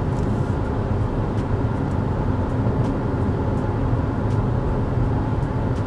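Steady in-cabin road noise of a BMW car cruising at around 80 km/h: an even rumble of tyres, engine and wind with no changes.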